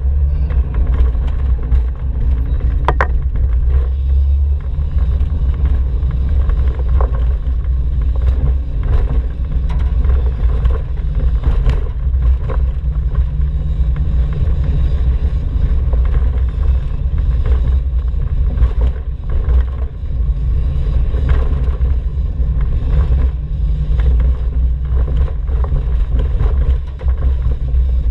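Volkswagen T3 van driving, heard from inside the cabin: a steady low rumble of engine and road noise, with a few brief clicks.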